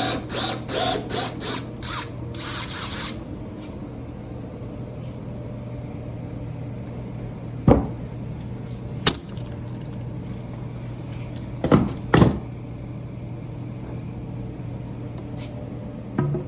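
Power drill driving pocket-hole screws into framing lumber in short trigger pulses for about three seconds, then a few separate sharp knocks of wood and tools being handled.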